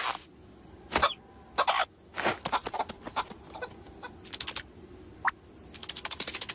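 Cartoon sound effects and character vocal noises: a string of short, sudden squawks, clucks and clicks, with a quick chirp about five seconds in and a fast run of clicks near the end.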